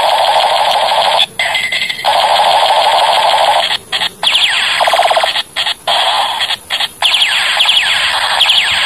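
Battery-powered toy sniper rifle's electronic firing sound effect through its small speaker: a harsh, loud buzzing burst of rapid-fire noise held on and off with short pauses, with falling whistle-like tones repeating over it in the second half.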